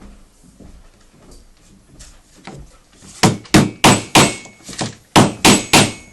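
A run of about nine sharp hammer strikes, roughly three a second, starting about three seconds in, knocking a vanity cabinet panel into place.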